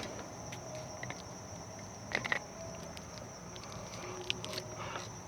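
Steady high-pitched chirring of night insects, with a few soft clicks from a test-light probe being handled at the fuse block.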